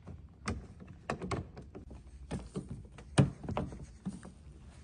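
Irregular clicks and knocks of hand tools working at a car door's lock cylinder and its retaining screw, with one louder knock about three seconds in.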